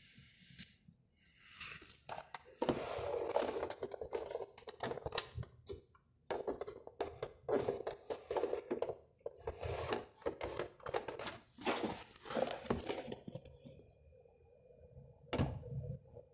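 Handling noise on a plastic boombox case: irregular clicks, knocks and rustles of a hand on the cabinet and its open CD lid. Near the end it thins to a faint steady hum with one more sharp click.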